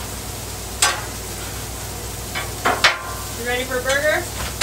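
Burger patties and onions sizzling on a Blackstone flat-top griddle, with metal spatulas scraping and clacking against the steel plate several times as the onions are stirred.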